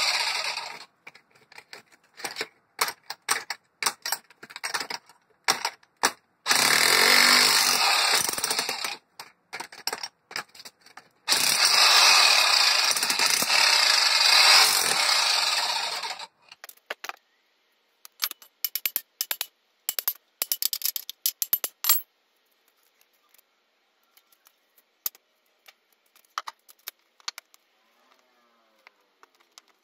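Electric jackhammer's chisel pounding concrete around a steel fence post bracket, in bursts of a few seconds with short pauses and single knocks between. About two-thirds of the way through the hammering stops, leaving only small clatters of broken concrete and stones.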